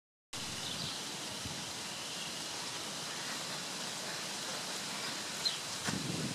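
Steady outdoor breeze hiss with a few faint bird chirps; near the end, a small click and a couple of soft low knocks.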